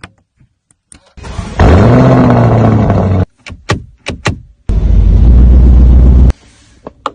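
Edited car sounds: an engine revs up and back down in pitch, a few sharp clicks follow, then a loud steady low rumble cuts off suddenly.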